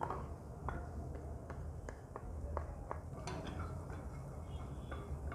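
A spoon or spatula clinking and scraping against a cooking pan as butter goes in for a white sauce: a string of irregular light clicks over a low steady hum.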